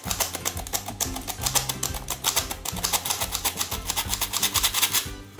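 Rapid, even clicking of a hand-held metal flour sifter as flour is sifted into a bowl, stopping about five seconds in, over background music.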